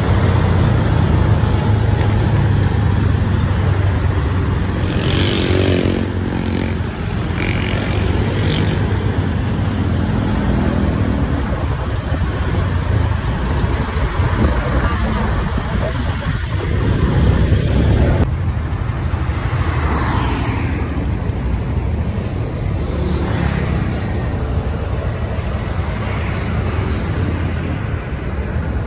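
Scania K410iB double-decker bus's diesel engine running close by, a steady low rumble, mixed with street traffic and passing motorcycles.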